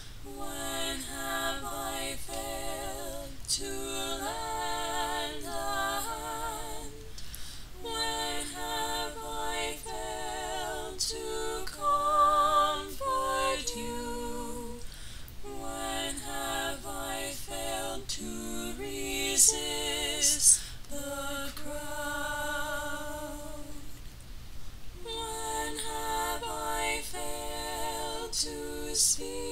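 A woman singing unaccompanied: a melody sung in phrases, with three short breaks between them.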